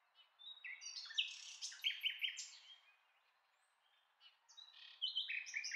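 A songbird singing two phrases of short, clear whistled notes that jump between pitches, the second phrase starting about four seconds in.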